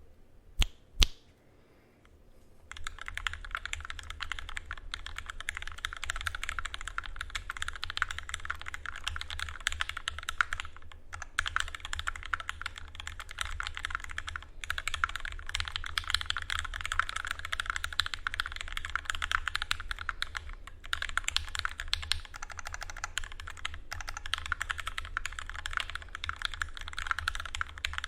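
Fast continuous typing on a custom mechanical keyboard with Durock linear switches, lubed with 205g0 and filmed, on a 4 mm aluminium plate with Cherry stabilizers and GMK keycaps. Two sharp key clicks come about a second in, then steady typing begins at about three seconds, with a few brief pauses.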